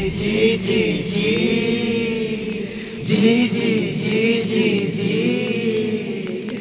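Film soundtrack: a group of voices chanting together like a choir.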